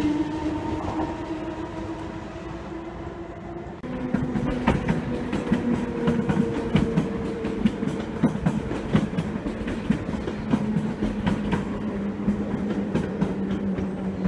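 SNCF Z 6400 electric multiple units running through a station: a steady electric traction-motor whine that fades away, then, after an abrupt cut, another unit's motor whine that slowly falls in pitch while its wheels clack repeatedly over rail joints.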